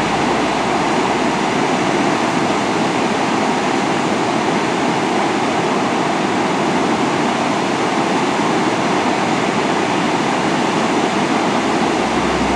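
Loud, steady rush of falling water, like a waterfall, with no change through the stretch.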